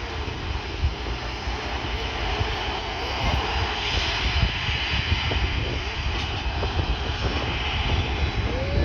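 Boeing 737-300 freighter's twin CFM56-3 turbofan engines running steadily: a loud, continuous rumble with a hiss on top.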